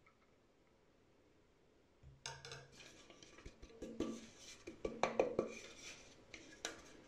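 Kitchen utensils clinking and scraping against dishes, starting about two seconds in with irregular sharp clinks, some ringing briefly.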